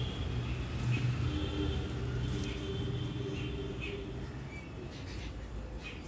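A motor vehicle's engine hum in the background, steady and then fading out about four and a half seconds in.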